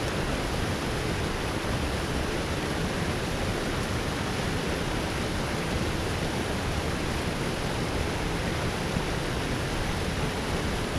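Water rushing steadily down a concrete spillway and churning into a foaming pool below.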